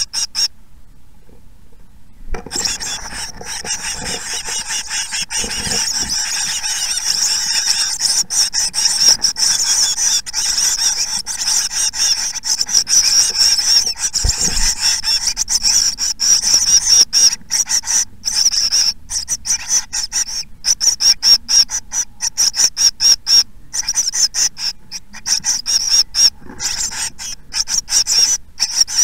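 Blue tit nestlings begging for food from a parent at the nest: a loud, high-pitched rasping chorus that starts about two seconds in and, in the second half, breaks up into rapid short bursts.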